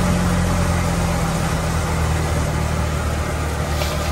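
Tractor-driven wheat thresher running: a steady engine drone with the machine's dense mechanical noise. There is a brief click near the end.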